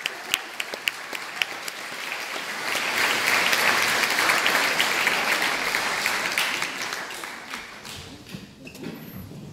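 Audience applause: a few separate claps at first, swelling to full applause about three seconds in, then dying away in the last two seconds.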